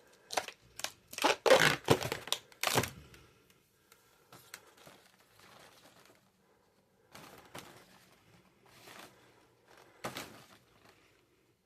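Latex modelling balloons being handled and twisted: a quick run of short rubbing strokes in the first three seconds, loudest about two seconds in, then sparse fainter rubs and handling noises.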